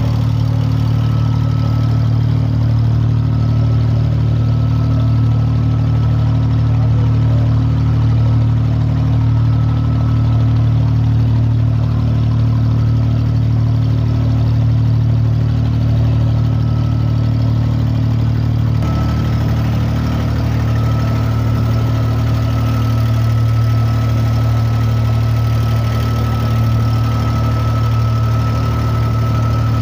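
Engine of a wooden Dubai Creek ferry boat running steadily at a constant speed: a low, even drone that holds throughout.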